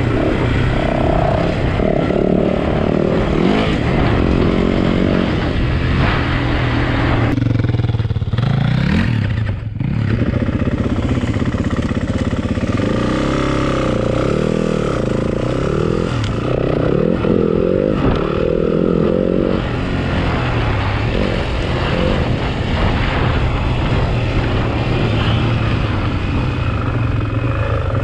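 Yamaha WR four-stroke single-cylinder enduro motorcycle being ridden hard off-road, its engine revving up and down as the rider works the throttle and gears. The engine dips briefly about ten seconds in as the throttle closes, then picks up again.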